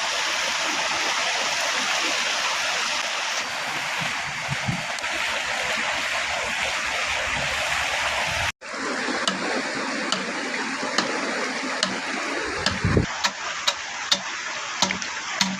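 River water rushing steadily. Just past halfway the sound cuts out for an instant, and afterwards sharp clicks and taps come through the water noise, more of them near the end.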